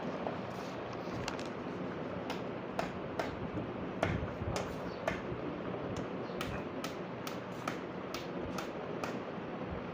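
A hammer striking nails into a wooden formwork plank: a string of light, sharp taps, sparse at first, then coming about two or three a second in the second half.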